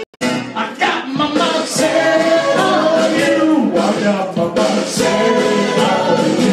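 A man singing loudly into a handheld microphone, his voice amplified. It starts abruptly after a brief dropout just after the start.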